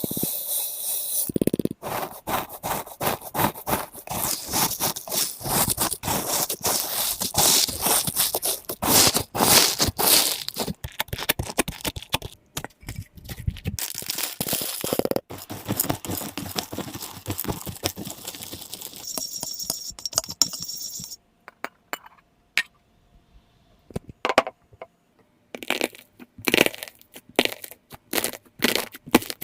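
Slime being squeezed and pressed by hand, making a dense run of sharp crackling clicks and pops that thins out to scattered pops after about 21 seconds.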